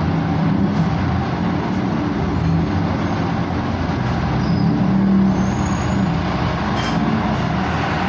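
Busy street traffic noise: vehicle engines running with a steady loud hum that swells and fades as traffic passes.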